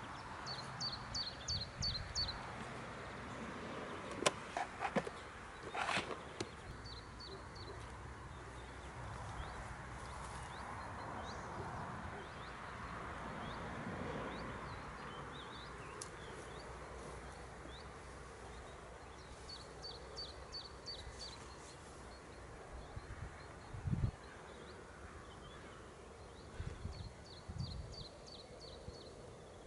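Quiet outdoor ambience in which a small bird sings a short phrase of about six quick high notes, three times over. A few sharp clicks and knocks sound in the first six seconds, and there are dull thumps near the end.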